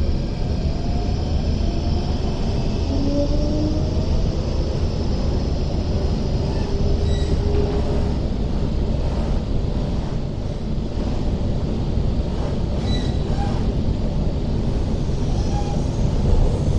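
MTR K-stock electric train running at speed, heard from inside the passenger car: a steady low rumble of wheels on track. Faint whining tones glide slowly upward in pitch over the first few seconds.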